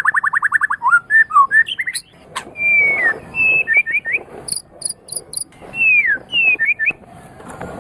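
Murai (Copsychus songbird) singing. A fast trill of rapidly repeated notes gives way, about a second in, to a varied run of whistled phrases, with slurred falling whistles and a few short, very high ticking notes.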